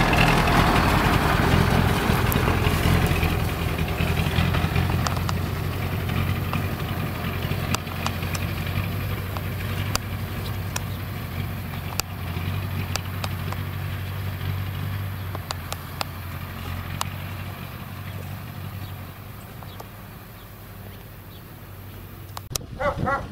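Heavy truck loaded with firewood pulling away slowly, its engine running steadily and fading gradually as it drives off, with a few scattered light clicks.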